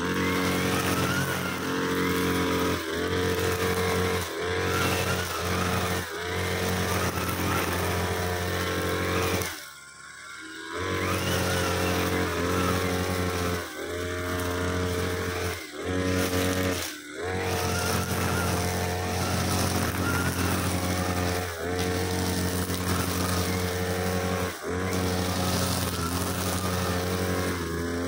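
Backpack brushcutter engine running at high speed while its head cuts thin, soft grass. The throttle is eased off briefly about ten times, once for about a second some ten seconds in, before it picks back up.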